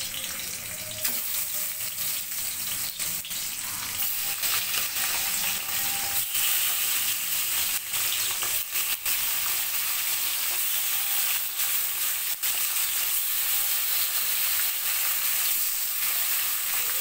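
Pieces of snakehead fish sizzling and spitting as they fry in hot mustard oil in a kadai, a dense hiss with scattered crackles. The sizzle gets louder about a second in and again around four seconds in, as more pieces go into the oil.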